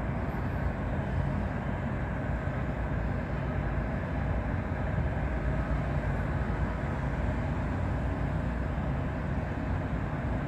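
Steady low rumble of a distant jet airliner taxiing at idle thrust, with a faint, even turbine whine over the airport's background noise.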